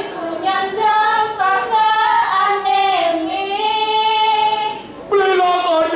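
A high solo voice singing long, held and ornamented notes in the style of Balinese dance-drama song. The phrase dips briefly near the end, and a new phrase starts loudly right after.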